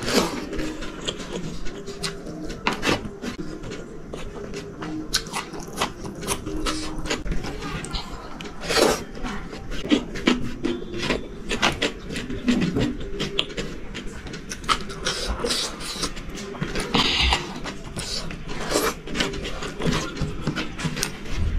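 Close-up eating sounds: irregular wet clicks and smacks of chewing a mouthful of rice, with fingers scraping and gathering rice across a metal tray.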